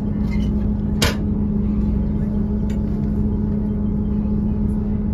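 Northern Class 158 diesel multiple unit heard from inside the carriage: a steady engine drone with a constant tone over a low rumble, and a single sharp click about a second in.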